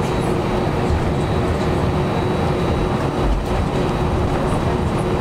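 Airbus A320 jet engines idling as heard inside the cabin during taxi: a steady low rumble with a constant hum and a faint high whine. A brief low bump comes about three seconds in.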